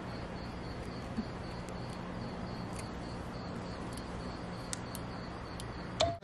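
Crickets chirping in a fast, even train of high short pulses, over a low steady hum.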